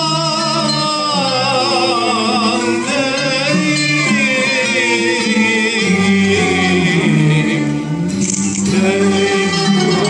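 Male soloist singing a Turkish classical song in makam hicaz, the word "yalan" drawn out in long, wavering, ornamented notes. He is accompanied by a Turkish classical ensemble of ud, kanun and strings.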